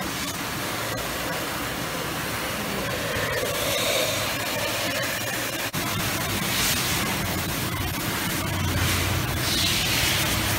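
Pressure-washer spray hitting a motorcycle's rear wheel, exhaust and underside: a steady hiss of water that swells a few times as the nozzle moves.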